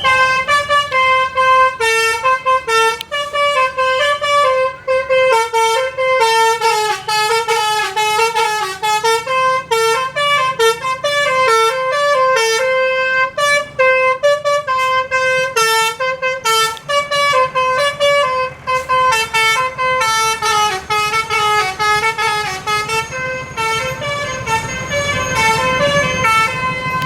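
Bus 'telolet basuri' musical horn, a set of electric trumpet horns played by a controller, sounding a fast tune of short notes that step up and down in pitch, with no break. A low engine hum runs underneath and grows louder near the end.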